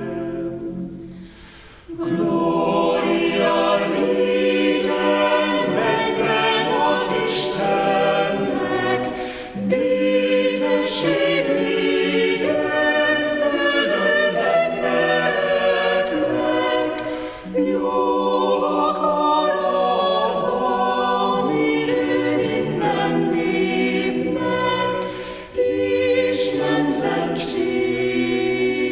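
Mixed vocal ensemble of women and men singing a medley of Hungarian Christmas carols a cappella in several parts, in a church. The singing dips briefly about a second in, then runs on in sustained phrases with short breaths between them about every eight seconds.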